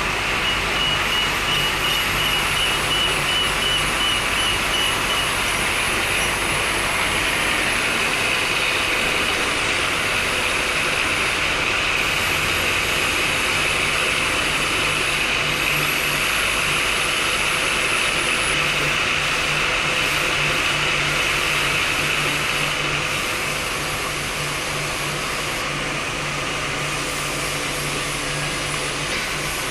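Metal-working lathe running and cutting, a steady mechanical noise with a high hiss and a faint steady whine, easing a little in level about two thirds of the way through.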